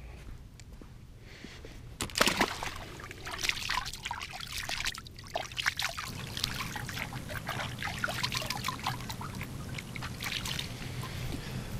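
Water splashing and trickling: quiet at first, then from about two seconds in a dense run of small, irregular splashes and dribbles.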